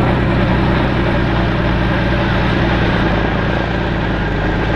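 Airbus Helicopters EC135 P2+ flying past, its twin Pratt & Whitney Canada PW206B turboshaft engines and rotors making a steady, loud beat and rush.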